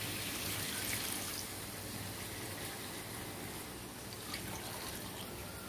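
Water poured from a bowl into a wok of chicken feet in chili paste, trickling and splashing into the sauce.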